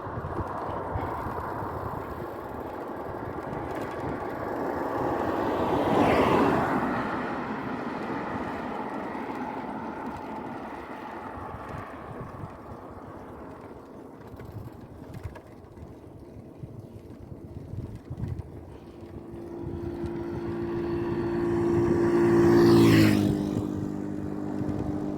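Vehicles passing on a road: one goes by about six seconds in, and another near the end, its engine hum rising and then dropping in pitch as it passes. Steady road and wind noise runs between them.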